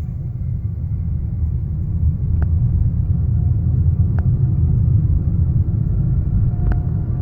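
Electric 2015 Fiat 500e rolling along with a steady low rumble, broken three times by a brief high scrape from the front wheel.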